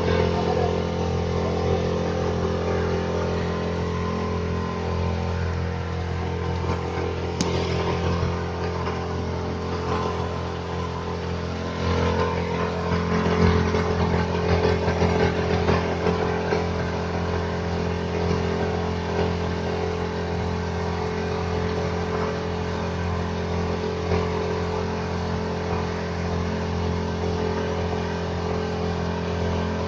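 Motorboat's engine running at a steady drone while the boat is under way, swelling a little for a few seconds near the middle.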